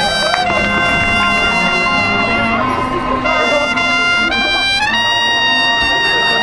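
High school marching band's brass section playing loud, sustained chords that step up in pitch about three and four seconds in.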